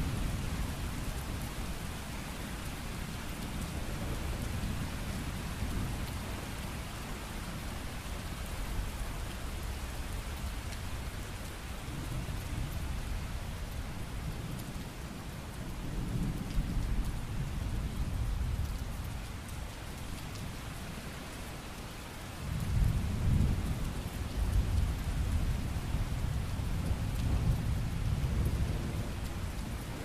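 Steady rain falling, with low rolling thunder that swells about halfway through and again more strongly from about three-quarters of the way in.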